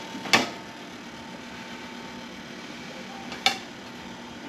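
Two sharp metallic clanks at the open oven, about three seconds apart, the first the louder: the wire oven rack knocking as the pizza goes in. A faint steady hum runs underneath.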